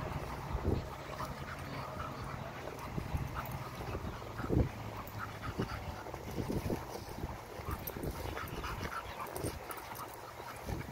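Black Labrador and Airedale Terrier wrestling: low growling from the dogs, with scuffing on gravel. It is loudest about halfway through.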